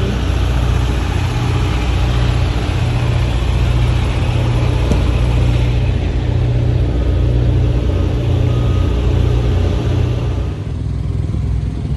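Semi-truck's diesel engine running with a steady low drone, the rushing noise above it easing off near the end.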